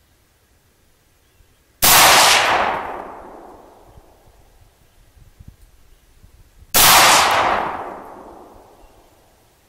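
Two shots from an AR-15 rifle, about five seconds apart, each followed by a long echo that dies away over a couple of seconds.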